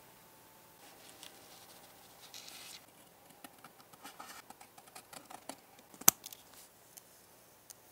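Scissors cutting a thin carbon-fibre-pattern sheet: a run of small snips and clicks, with one loud, sharp snip about six seconds in. Before the cutting starts, a soft rustle of the sheet being handled.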